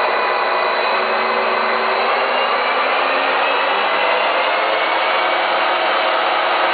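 Proking hollow-spindle lathe running in high gear, its large chuck spinning at speed: a loud, steady whir with faint whining tones from the headstock gearing that drift slowly in pitch.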